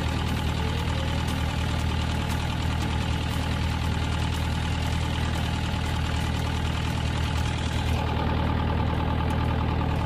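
Sailboat's inboard diesel engine running steadily, heard close up inside the engine compartment, with a fast even mechanical clatter over a steady low hum.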